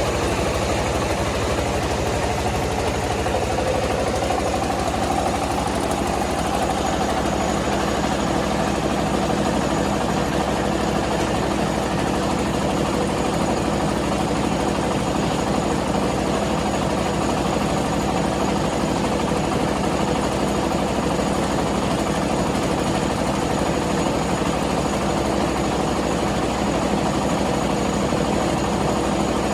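Rice milling machine running steadily: a constant mechanical drone with a low hum, even and unchanging.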